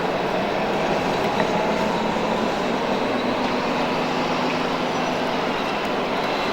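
Steady whirring of the small electric motors and gearboxes of radio-controlled scale model trucks.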